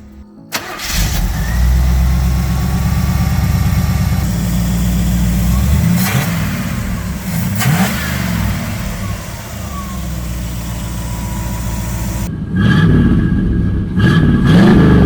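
Chevrolet 305 small-block V8 in a 1986 Camaro Z28, stock, starting about half a second in and running at idle. It is revved up and back down around six and eight seconds in, then blipped several more times near the end.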